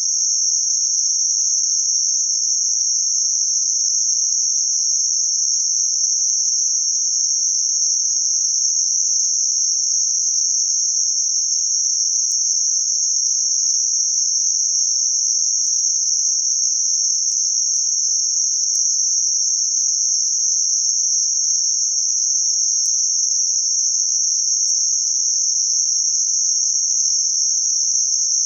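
Synthetic band-limited noise centred around 6051 Hz: a steady, even, high-pitched hiss.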